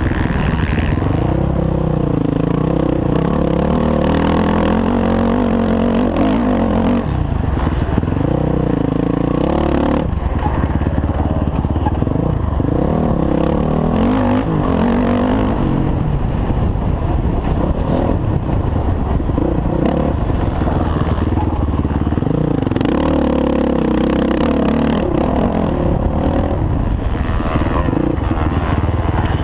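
Four-stroke dirt bike engine heard from on the bike while racing, its note climbing and dropping again and again as the throttle is worked and the gears are shifted.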